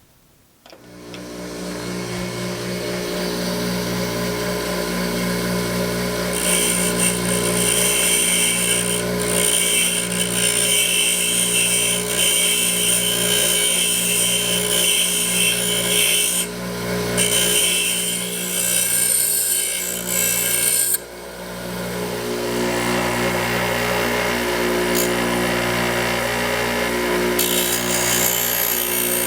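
Grinder motor spinning up, then the steel tip of a small screwdriver held against the grinding wheel in repeated passes, grinding its sides flat to turn it into a tiny chisel. The grinding hiss comes and goes over a steady motor hum, with a short break about two-thirds of the way through.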